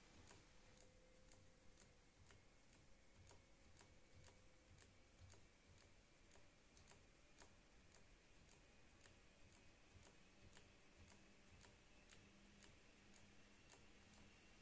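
Near silence: faint room tone with faint ticks about twice a second.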